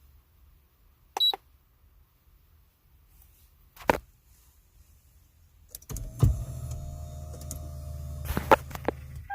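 A short, high electronic beep about a second in and a click near four seconds. Then, at about six seconds, a thud followed by a steady low hum with a few sharp clicks near the end: the 2007 Lexus IS350 powering up while its ECU is being read through the OBD port.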